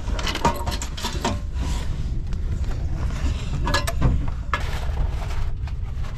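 Steady low rumble inside an Al Boraq high-speed train carriage, with bursts of clicking and rattling knocks about half a second in and again around four seconds.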